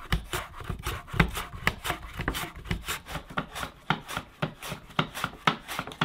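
A raw potato pushed back and forth over a mandoline slicer's blade: a quick run of short rasping slicing strokes, about three to four a second.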